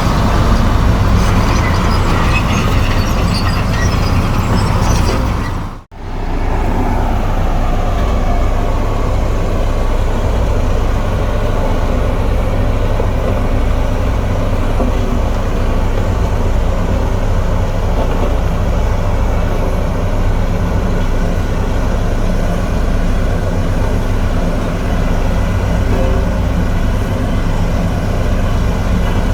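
Komatsu D58E crawler bulldozer's diesel engine running steadily at working revs, with scattered faint high ticks in the first few seconds. The sound breaks off for an instant about six seconds in, then carries on unchanged.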